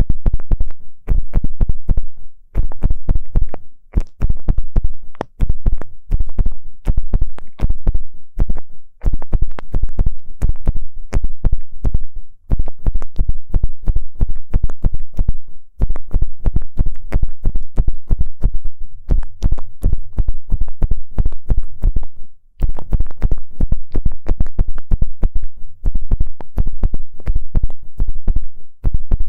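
Ear pick scratching and scraping close against the microphone in rapid strokes, with a few short pauses.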